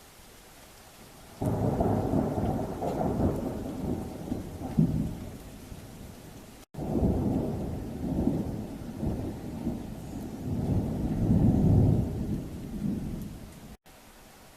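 Thunder rolling in two long, deep rumbles over a light hiss of rain. The first starts suddenly about a second and a half in and fades away. The second comes in after an abrupt break and swells again before cutting off near the end.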